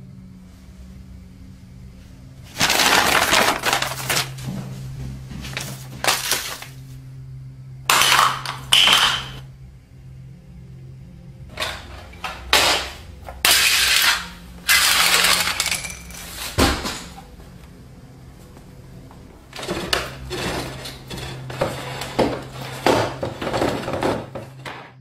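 Papers and small objects on a coffee table rustling, scraping and clattering in repeated bursts of a second or so, with one sharp knock about seventeen seconds in, over a low steady hum.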